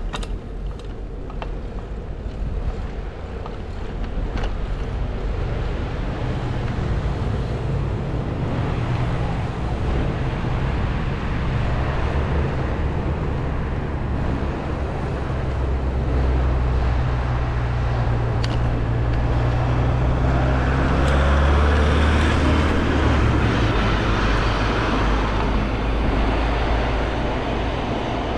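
Street traffic: a low engine rumble builds over the first few seconds, and a vehicle passes close with a rush of tyre noise about two-thirds of the way through, then eases off.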